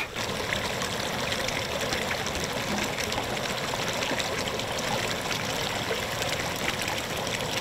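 Steady trickling, running water at a small rock-edged backyard pond.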